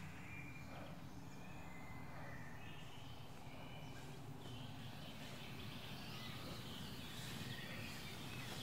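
Quiet woodland ambience: a steady low rumble with a few faint bird chirps scattered through it.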